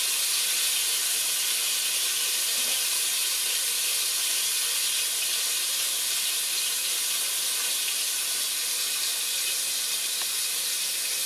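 Flour-dredged chicken pieces frying in hot oil in a stainless steel pot, a steady, even sizzle as they brown.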